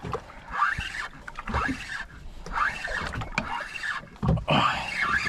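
Penn 4000 spinning reel cranked in short repeated bursts during a jigging retrieve, its gears whirring, about one burst a second.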